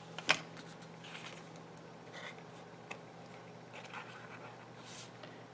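Faint handling of small cardstock pieces: a sharp tap about a third of a second in, then a few soft rustles and light scrapes as the paper pieces are moved and pressed together.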